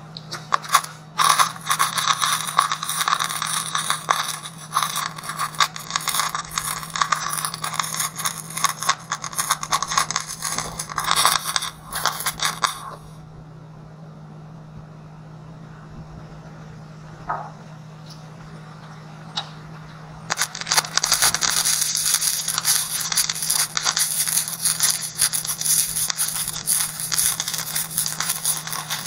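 Wire-feed welding arc crackling steadily as a bead is run on the steel tank, in two runs. The first lasts about twelve seconds and starts a second in; after a pause of about seven seconds the second starts about two-thirds of the way through. A steady low hum sits underneath.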